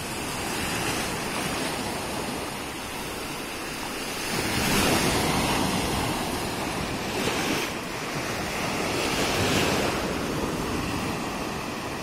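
Small sea waves breaking and washing over the shallows of a sandy beach, the surf swelling louder every couple of seconds from about four seconds in.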